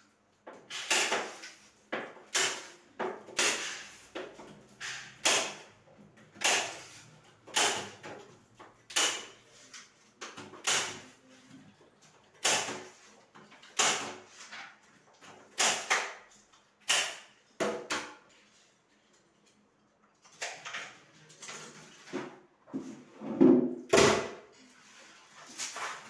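Hook-and-loop (Velcro) strip on a window mosquito net being pulled apart section by section: a run of short ripping sounds, about one every second and a half, a pause, then more handling and ripping near the end.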